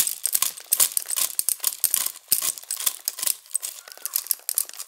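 Dry corn kernels crackling and snapping off the cob as it is twisted through a homemade sheller made of PVC water pipe with screws poking through it, a fast, irregular crackle with kernels dropping into the basket below.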